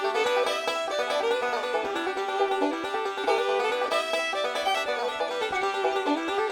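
Background music: an instrumental with quick plucked-string notes in a bluegrass or country style, at a steady level.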